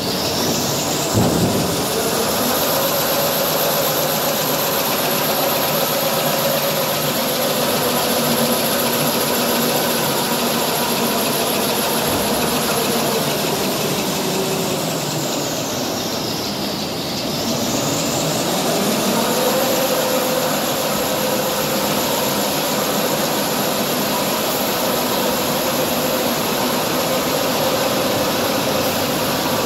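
Tissue roll production machinery running: steady mechanical noise with a high motor whine that climbs in pitch over the first couple of seconds, sags about halfway through and climbs back again. A brief knock sounds about a second in.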